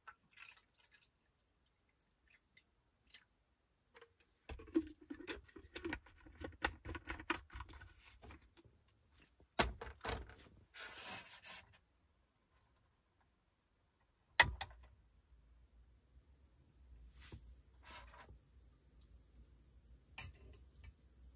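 Water poured from a plastic bottle and the light clatter of a metal cup and bottle being handled. About two-thirds through comes one sharp click, the piezo igniter of a Snow Peak GigaPower canister gas stove. The lit burner's steady hiss follows it.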